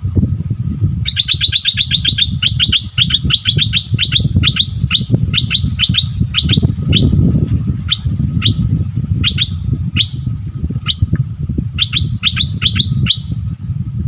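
Bulbul calling in a long run of sharp, falling chip notes, quick at first, then slowing, with a fast cluster near the end. It is aggressive calling at a rival bird. A steady low rumble lies underneath.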